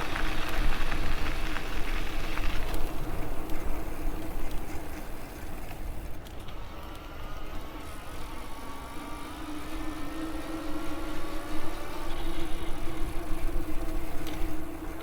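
Electric bike riding along: a steady motor hum, with a fainter whine that rises in pitch from about six seconds in, over rumbling wind and tyre noise.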